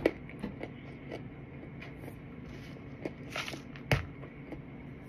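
A person chewing a mouthful of raw starch: scattered soft crunches and wet mouth clicks, with a sharper click near the end.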